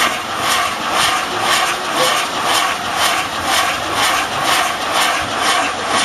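Fireworks hissing as a set piece sprays sparks: a loud, continuous rushing hiss that pulses evenly about twice a second.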